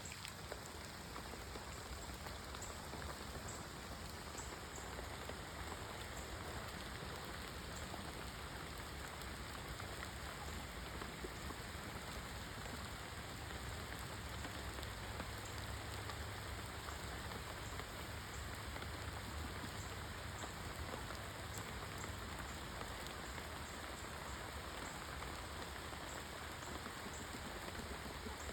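Steady rain falling, an even patter of many fine drops.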